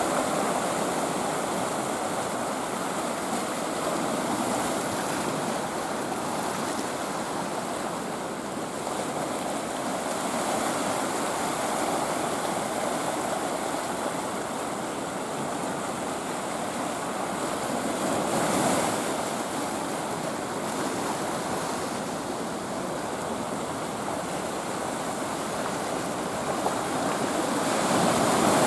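Sea waves washing over a low rocky shore: a steady hiss of surf with louder swells about two-thirds of the way through and again near the end.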